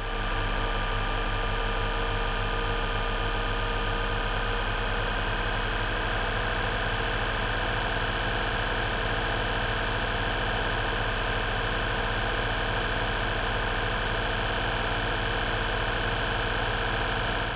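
Steady mechanical whirring with a fast, even clatter, held at one level; it comes in at the start and stops at the end.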